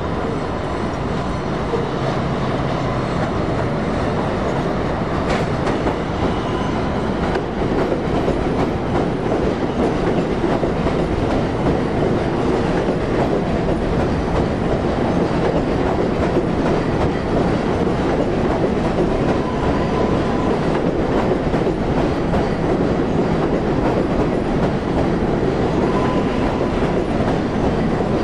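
R188 subway cars of a 7 train running over the elevated steel track and along the platform, a steady rumble with wheels clacking over the rail joints. A faint brief squeal rises above it a couple of times near the end.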